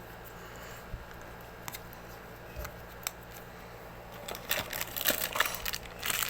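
A few light taps, then from about four seconds in, packaging crinkling and rustling as it is handled.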